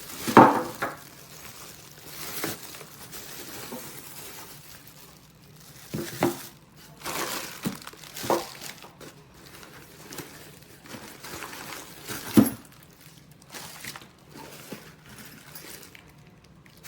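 Tool pieces and bits from an impact wrench kit being handled: irregular knocks and clinks with rustling in between, the sharpest knock about half a second in.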